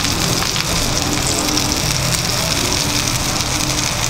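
Finely chopped onion sizzling in melted butter in a cast-iron skillet, with a steak searing on a cast-iron griddle beside it: a steady frying hiss.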